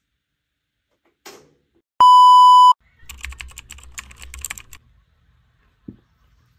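A washing machine's electronic control panel gives one loud, steady beep about three-quarters of a second long. Then come nearly two seconds of quick papery clicks and rustling from book pages being leafed through.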